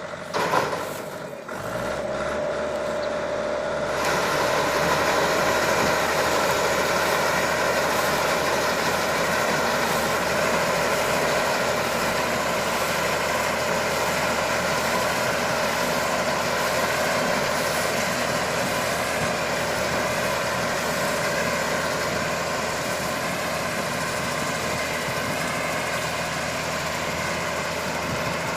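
Engine running steadily, the power for a mini hay baler baling wheat straw. A brief loud clatter comes about half a second in, and the running sound grows fuller and louder about four seconds in.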